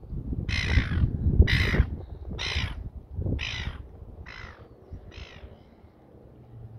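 A bird giving six harsh, cawing calls about one a second, growing fainter toward the end.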